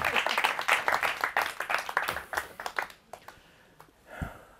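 Audience applause fading away and ending about three seconds in, followed by a single short thump near the end.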